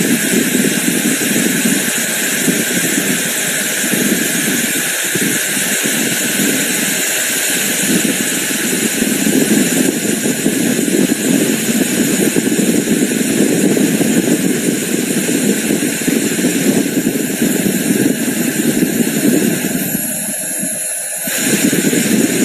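Sharp IB-WX901 hair dryer running: a steady rush of blown air over the fan motor. Near the end the sound changes for about a second, a faint high whine coming in and the lower part of the rush dropping away, before the steady rush returns.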